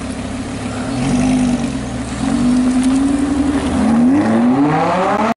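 Lamborghini Huracán's V10 engine pulling away at low revs, then revving hard as it accelerates, its note rising steeply about four seconds in.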